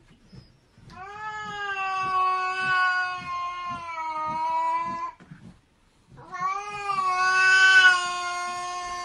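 Tabby cat giving two long, drawn-out yowls, the second louder, a possessive growl-yowl of a cat guarding a fish it has seized from a fishing net.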